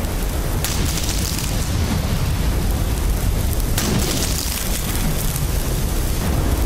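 A block of ice exploding: a sustained blast with a heavy low end and a hiss of scattering fragments. Fresh blasts come about half a second in and again near four seconds in.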